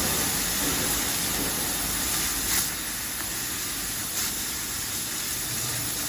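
Laser cutting machine cutting titanium sheet: a steady hiss, with a brief louder spike about two and a half seconds in and another near four seconds.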